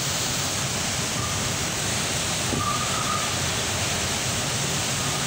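Cyclone-force wind and heavy rain making a steady, unbroken roar as the storm lashes the trees.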